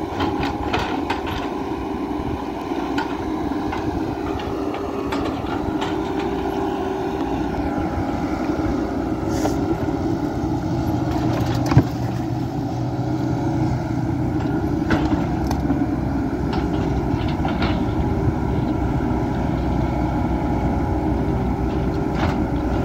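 Kobelco SK120-3 long-reach excavator's diesel engine running steadily under hydraulic load as it swings and lifts a bucket of mud, with scattered clanks and one sharp knock about twelve seconds in.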